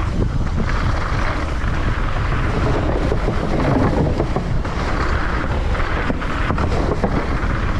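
Wind buffeting the microphone over the steady rumble and rattle of a Specialized Demo downhill mountain bike riding a trail at speed.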